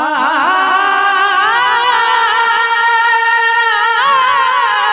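A woman singing a kirtan melody in a high voice, drawing out one long phrase with wavering turns of pitch and a melodic shift about four seconds in.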